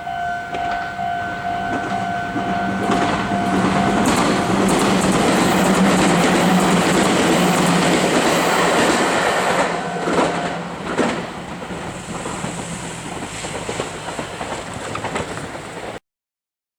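Meitetsu 3500 series electric train passing a level crossing while the crossing's electronic warning bell rings. The train's running noise builds to loud a few seconds in, with two sharp wheel clacks over rail joints about two-thirds of the way through. It then eases off, and the sound cuts off abruptly near the end.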